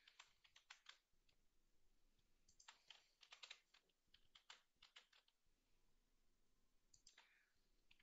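Faint clicking of computer keyboard keys and a mouse, in several short flurries a second or two apart.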